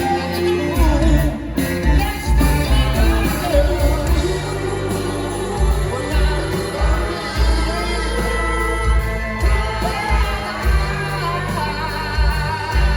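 Live rock-and-blues band playing with a lead singer, heavy bass notes pulsing underneath.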